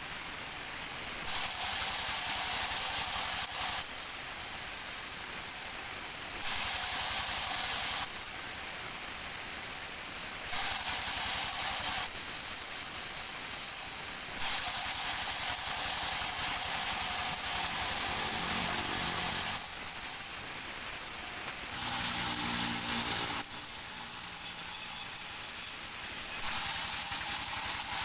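Sawmill machinery noise, a steady hiss-like din that changes abruptly every couple of seconds as short shots follow one another, with a faint hum underneath for a few seconds near the middle.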